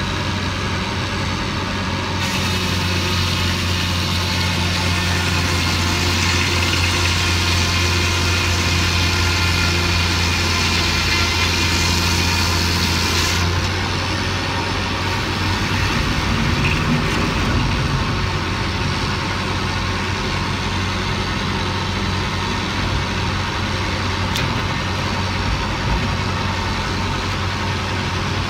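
Scragg mill sawing a raw aspen log: the saws cut into the wood about two seconds in with a loud, hissing cutting noise that stops about halfway through. The mill's drive hums steadily throughout.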